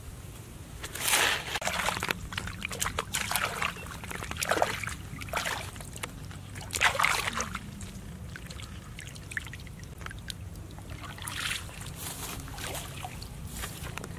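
Shallow muddy water splashing and sloshing as a hand gropes through it, in irregular bursts several times.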